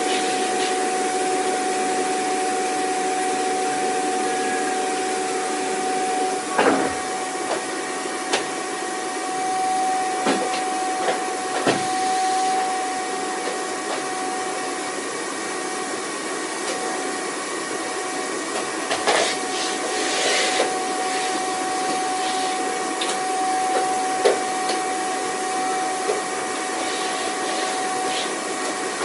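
Vacuum cleaner motor running steadily: an even rushing hiss with a constant whine through it. A few short clicks and knocks come and go over it.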